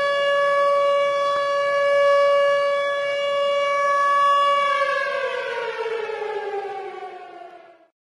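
Tornado siren holding a steady wail, then winding down about five seconds in, its pitch falling as it fades out to nothing just before the end.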